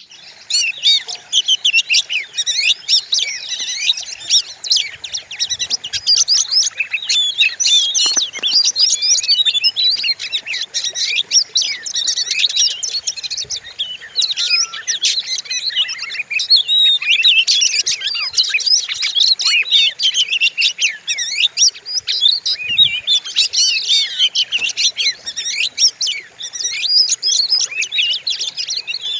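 Oriental magpie-robin (kacer) singing a fierce, rapid song, a dense unbroken run of sharp whistles and chirps. It is the kind of song bird-keepers play to provoke a caged kacer into singing.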